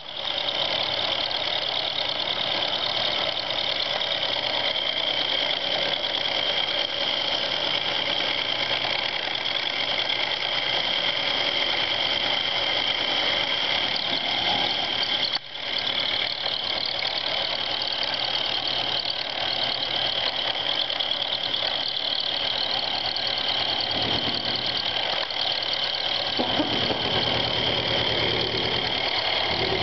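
Milling machine running an end mill through a metal air bag bracket: a steady whine from the spindle and cutting, with a brief break about halfway through.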